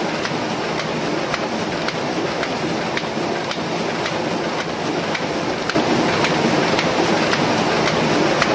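Sheet-fed offset printing press running: a steady mechanical din with faint regular ticks, getting louder about six seconds in.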